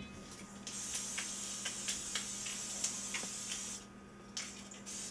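Aerosol can of non-stick cooking spray hissing steadily for about three seconds, starting about a second in and stopping near the four-second mark. A couple of light knocks follow near the end.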